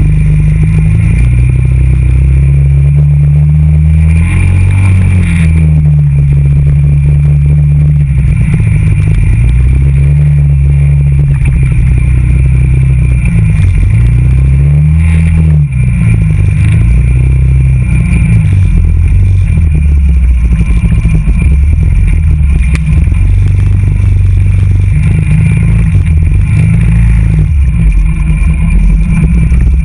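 TGB Blade 425 quad's engine running as it is ridden off-road, its pitch repeatedly rising and falling as the throttle is opened and closed.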